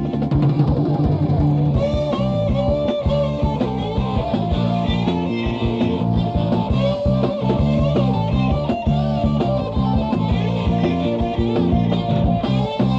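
Instrumental section of a New Wave of British Heavy Metal song, with electric guitars, bass and drums playing at a driving beat, heard from a 1981 cassette demo recording.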